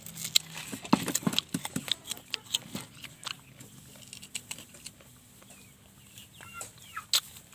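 Close crisp clicks and crunches of raw green guava being bitten, chewed and rubbed in chili salt on a plate, densest in the first few seconds, with chickens clucking in the background near the end.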